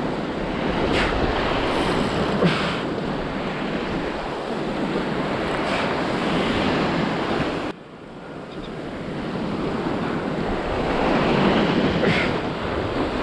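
Sea waves washing and breaking against a rocky shoreline, swelling and easing, with wind on the microphone. The sound drops abruptly a little past halfway, then builds up again with the next wave.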